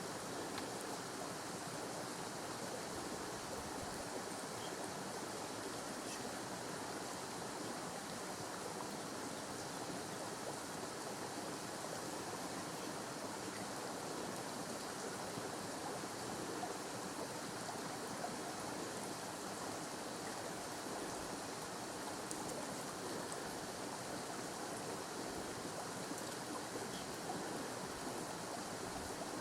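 Steady, even rushing noise with no distinct events, like running water.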